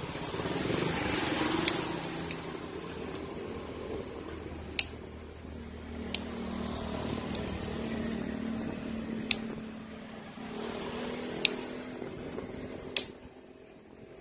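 About six sharp, irregularly spaced clicks from hand work on a bundle of automotive wires, over a low steady hum.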